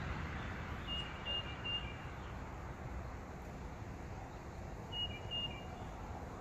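Steady rumble of traffic passing on a nearby road. Over it, a bird gives a short high three-note chirping phrase twice, about a second in and again about five seconds in.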